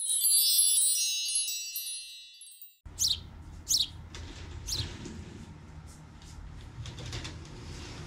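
A bright wind-chime shimmer of many high ringing tones fades and then cuts off abruptly about three seconds in. Birds then chirp with sharp downward-sliding calls, three strong ones followed by fainter ones, over a low steady background rumble.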